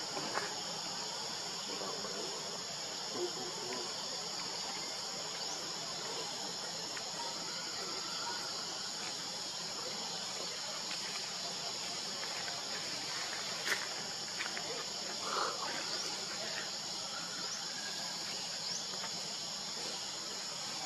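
Steady, high-pitched chorus of insects, a continuous buzz that does not change, with one brief click about two-thirds of the way through.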